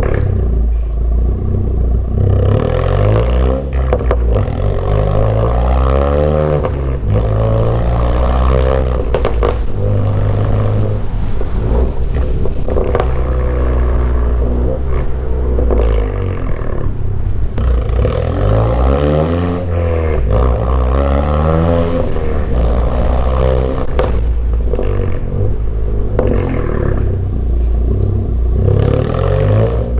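Turbocharged 10th-generation Honda Accord with a straight-piped exhaust (muffler and resonator deleted) accelerating hard. The exhaust note climbs in pitch and drops back at each gear change, several times over.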